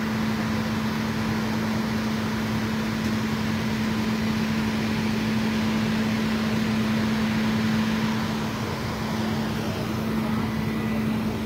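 Steady mechanical hum: a constant low drone holding one pitch throughout over a wash of outdoor noise.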